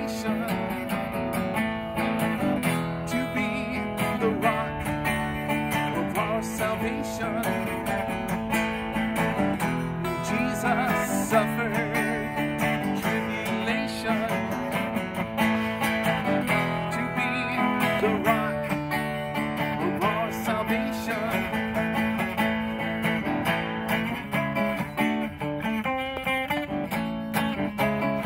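Sunburst archtop hollow-body guitar played steadily, picking out chords and melody lines.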